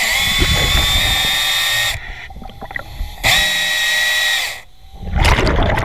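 Hydraulic chainsaw cutting through an old wooden piling underwater: a high whine that runs for about two seconds, eases off, then comes back for about a second and a half. A short rushing burst follows near the end.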